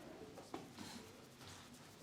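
Faint rustling and rubbing of hands massaging a head and hair, with a soft click about half a second in.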